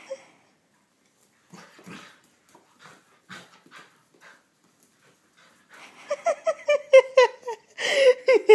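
Puppy yipping and whimpering in rapid short calls from about six seconds in, building to a longer, louder whine near the end, as it spins after its own tail. Before that, faint scuffles of its paws on the tile floor.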